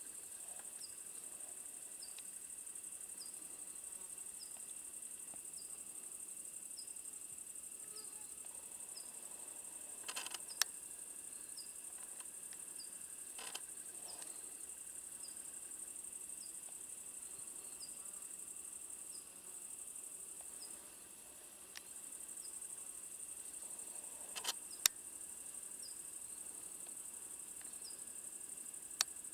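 Crickets trilling in a steady high-pitched drone, with a faint short chirp repeating about once a second. A few sharp clicks stand out, the loudest about ten seconds in and again near the end.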